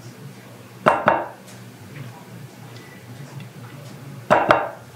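A silicone spatula scooping mayonnaise from a plastic jar and clinking against the jar and glass mixing bowl: two short clatters, about a second in and again near the end, over a low steady hum.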